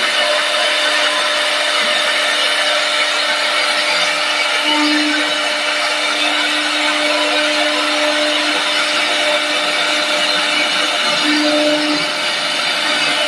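CNC wood lathe turning a wooden blank into a leg: a steady motor hum under the dense hiss of the cutter on the spinning wood.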